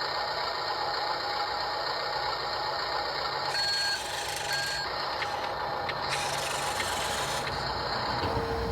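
Steady hiss with a faint continuous tone, and two short electronic beeps a little over a second apart near the middle.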